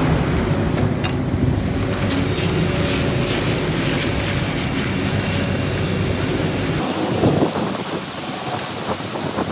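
Concrete mixer truck's diesel engine running steadily while a hose sprays water to rinse the truck. About seven seconds in the engine sound cuts off suddenly, leaving the hiss of spraying water.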